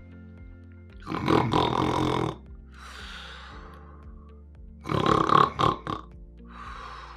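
A man imitating loud snoring twice, each a rasping snore followed by a softer, breathy exhale, over soft background music.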